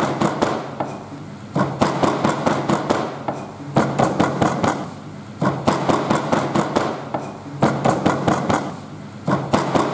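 Kitchen knife rapidly chopping and mincing sea-snake meat with herbs on a wooden cutting board. The sharp strikes come in quick runs of one to two seconds, separated by short pauses.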